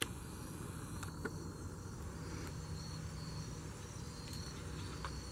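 Faint outdoor background of crickets chirring steadily, with a few faint clicks.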